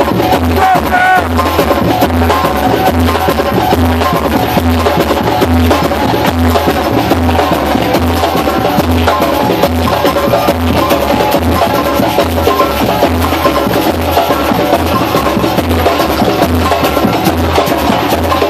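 Live samba percussion (batucada) drumming: a steady low bass-drum pulse under dense, fast hand-drum and stick rhythms, played without a break.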